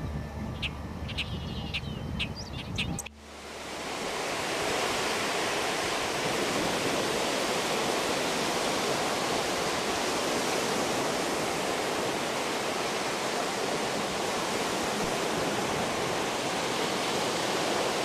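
A few short high bird notes over a low hum. After an abrupt cut about three seconds in, a steady, even rushing noise at the water's edge takes over for the rest.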